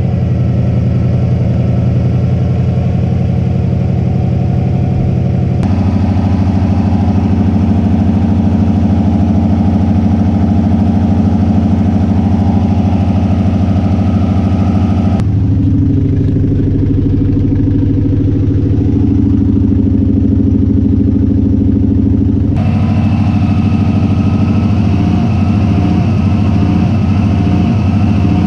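2002 Subaru WRX's turbocharged 2.0-litre flat-four engine idling roughly just after start-up, its idle note shifting abruptly several times. It is the funny idle and misfire that the owner traced to a failed idle air control valve.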